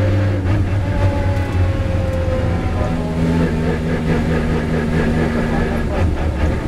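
Lamborghini Huracán race car's V10 engine running at low speed as the car slows, heard from inside the cabin as a steady low drone whose pitch eases down slightly.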